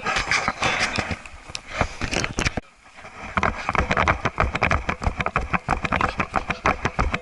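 Dense, irregular clicking, knocking and scraping from a Sony HDR-AS30V action camera's case on a chest mount, picked up through the housing as the wearer moves. It stops briefly about two and a half seconds in, then resumes.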